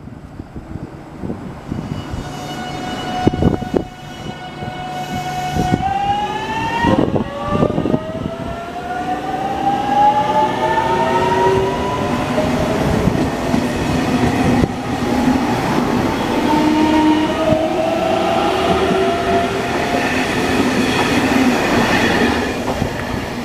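JR Kyushu 813 series electric multiple unit pulling away from a station. The VVVF inverter and traction motors whine, starting as a steady tone and then several tones gliding upward in pitch as the train accelerates. The sound grows louder as the cars pass close by, with a few knocks from the wheels about three and seven seconds in.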